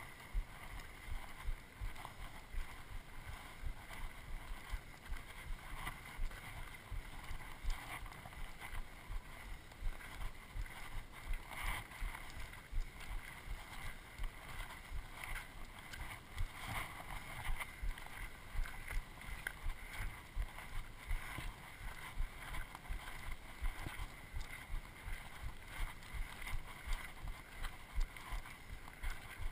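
Footsteps walking up a dry gravel trail: a steady rhythm of low thumps with crunching and scuffing underfoot.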